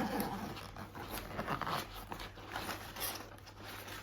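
Packaging rustled and rummaged through inside a cardboard box, in irregular crackles and scrapes.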